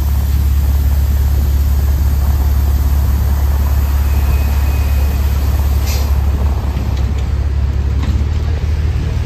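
Diesel engine of a LiAZ-5292.60 city bus idling at a stop with a deep, steady hum. A short, faint high beep comes about four seconds in, and a sharp click about six seconds in.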